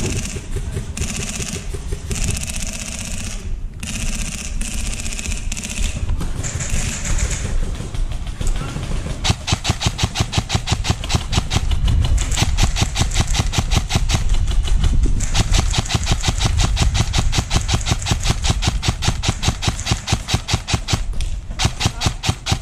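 Airsoft gun firing on full auto: a rapid, even clatter of shots that starts about nine seconds in and runs in long strings until near the end, after a stretch of irregular knocking and movement noise.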